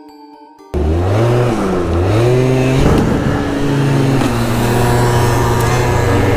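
Small two-stroke scooter engine, an MBK Booster 50cc, starting up sharply under a second in and revving hard under acceleration. The pitch climbs twice, then holds steady at high revs.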